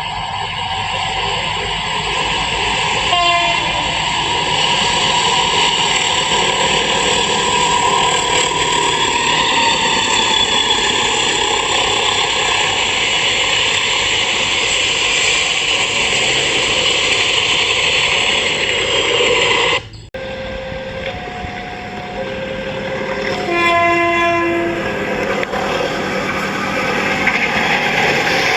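CC 201 diesel-electric locomotive running past with a loud steady rolling rush, sounding its multi-tone air horn from about three seconds in. The sound cuts off abruptly about twenty seconds in, and a short horn blast follows a few seconds later.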